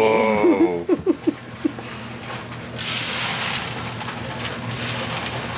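Pay dirt sliding out of a plastic gold pan and being spread across a wire-mesh classifier screen: a gritty, sandy hiss that starts about three seconds in and lasts a couple of seconds. It follows a drawn-out "whoa" at the start.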